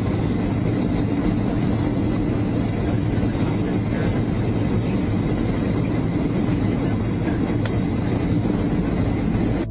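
Steady jet engine and airflow noise inside the cabin of a four-engine airliner in cruise, a loud, even low rush with a deep hum under it.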